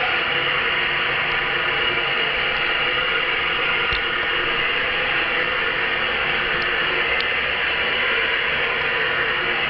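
Toilet water running with a steady hiss, without the rise and fall of a flush, as when the tank is refilling. A few faint ticks sound about four and seven seconds in.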